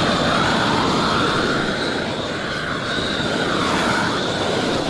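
Propane roofing torch burning steadily with a loud rushing flame, heating the seam of a torch-down modified-bitumen roll to melt its plastic film before the seam is rolled together.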